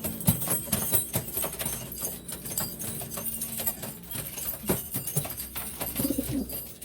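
Domestic pigeons shuffling and tapping about, making many small irregular clicks and taps.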